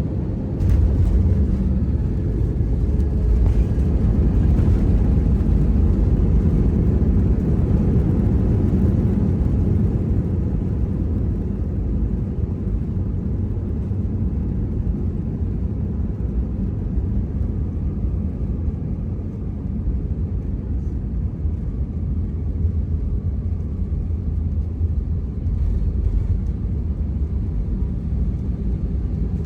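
Loud, steady low rumble of a moving vehicle heard from inside it, strongest in the first ten seconds and then easing slightly.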